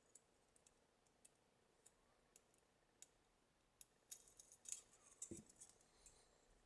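Faint clicks and scrapes of resistor wire leads being fed through the holes of a circuit board and handled, sparse at first, then a busy cluster about four seconds in with a soft bump of the board.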